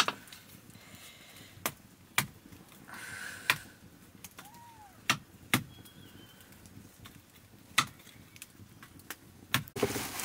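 Wood fire crackling under a cooking pot, with sharp pops at irregular intervals of one to two seconds. Near the end a woven plastic sack rustles as it is handled.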